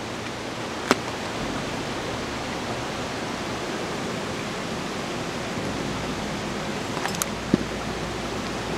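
Steady rush of river water, with a few sharp plastic clicks from a fly box: one about a second in, and two close together near the end as the box is snapped shut.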